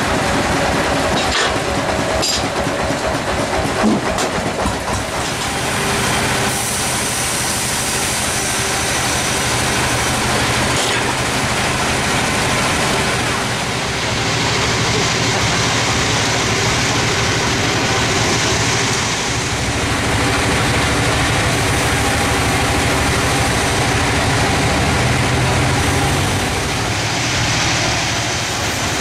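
Band sawmill machinery running steadily, a continuous mechanical drone, with a few sharp knocks in the first few seconds.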